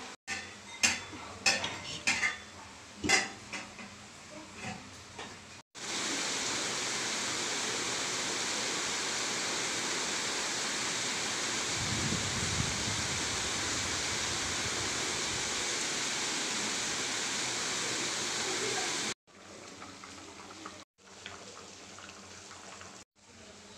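A spoon clinking and scraping against a cooking pan as the aloo soya badi curry is stirred, with several sharp strikes in the first few seconds. After an abrupt cut comes a steady sizzle of frying lasting about thirteen seconds, which stops suddenly at another cut. Quieter, faint clatter follows near the end.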